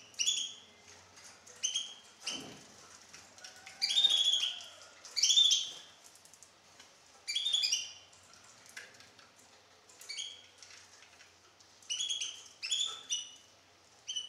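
Goldfinch × canary hybrid singing short phrases of sharp high chirps and trills, a new phrase every second or so with brief pauses between. The loudest phrases come about a third of the way in.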